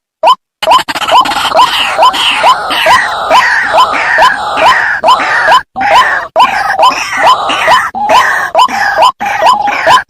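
White-breasted waterhens calling: a short rising note repeated about two to three times a second, with a dense chorus of harsher croaking calls over it from about half a second in. This is the ruak-ruak lure call used to draw the birds out.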